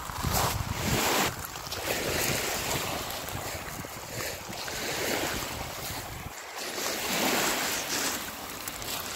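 Small lake waves washing onto a pebbly shore, swelling and fading several times, with wind buffeting the microphone.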